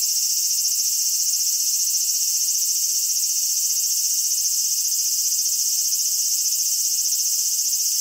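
Cicadas droning: one steady, high-pitched shrill that does not let up.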